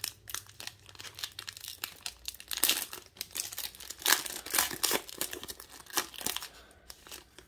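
Foil wrapper of a Sage Premier Draft autograph card pack crinkling and crackling in the hands as it is torn open, in irregular bursts of crackle that thin out near the end.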